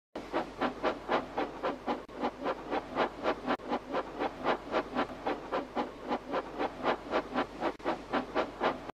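Steam locomotive chuffing, an even run of about four to five puffs a second that starts and cuts off abruptly, laid over toy train footage as a sound effect.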